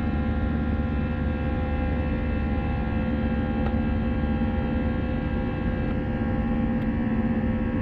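Jet airliner's engines heard from inside the cabin in flight: a steady drone with a low rumble and several held tones that do not change.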